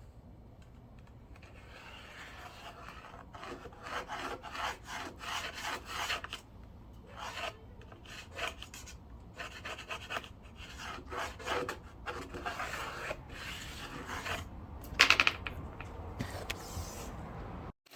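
Irregular scraping and rubbing strokes on a wooden board, hand work on the pine panels of a speaker box, with a brief louder scrape about fifteen seconds in.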